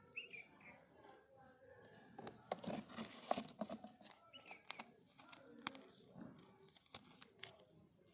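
Faint handling of packaging during an unboxing: rustling and crinkling with sharp clicks and knocks, busiest about three seconds in.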